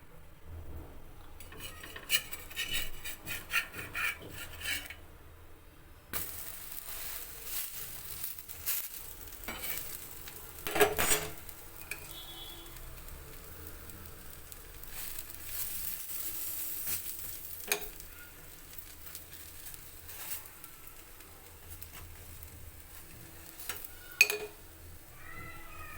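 Utensil clinks and stirring strokes against a bowl, then from about six seconds in a steady sizzle of batter-dipped bread frying in hot oil in a pan, with a few knocks of a spatula against the pan.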